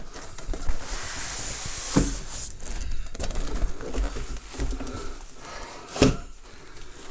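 Polystyrene foam packing rubbing and scraping against its cardboard box as a boxed monitor in foam is worked out and lifted. There is a knock about two seconds in and a louder knock about six seconds in.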